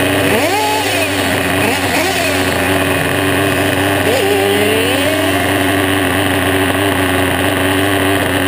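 Force 21 nitro engine of an Ansmann Virus 3.0 RC car running at a steady idle, its revs briefly rising and falling a few times near the start and again about four seconds in, while the engine is being adjusted with a screwdriver.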